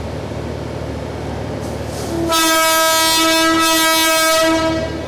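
Horn of the Yufuin no Mori diesel tourist train sounding one long steady blast on a single pitch, starting about two seconds in. Steady platform background noise comes before it.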